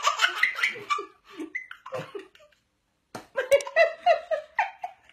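A baby's voice and a woman's laughter in short bursts, with a brief silence about halfway through before the voices resume.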